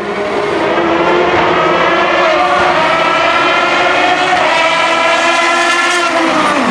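Aston Martin DBR9 GT1 race car's 6.0-litre V12 at high revs, growing louder over the first second as it approaches and then holding a high, steady note. Near the end the pitch starts to fall as it comes off the throttle.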